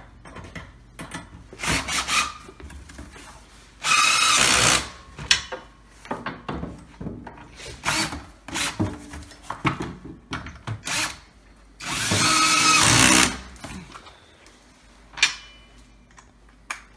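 DeWalt cordless drill driving self-tapping screws into a table-leg bracket, in two runs: a short one of about a second, then a longer one of about a second and a half later on. Short clicks and knocks of screws and parts being handled fall between the runs.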